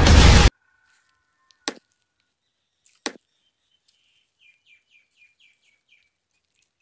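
Logo intro music cuts off about half a second in. Two sharp mouse-click sound effects follow, about a second and a half apart, then a faint, quick run of small high ticks, from a subscribe-button animation.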